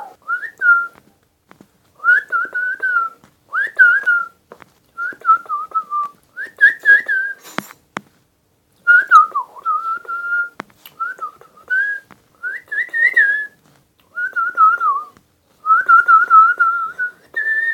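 A person whistling a warbling tune by mouth in short phrases of about a second, with brief pauses between them. A single sharp click about eight seconds in.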